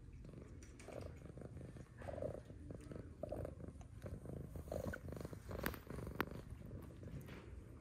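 Domestic tabby cat purring close to the microphone while being petted, a steady fast low rumble. A couple of sharp clicks come about two-thirds of the way through.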